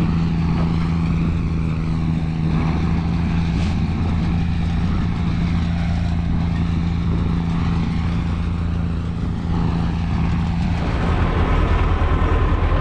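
Tractor diesel engine running at a steady speed, a constant low hum with a rumble beneath. About eleven seconds in the engine note changes and grows a little louder.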